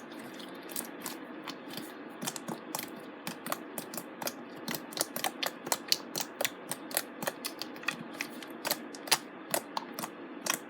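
Stiff, over-activated slime being kneaded and stretched by hand, giving off an irregular run of sharp clicks and pops, a few each second and thicker toward the end.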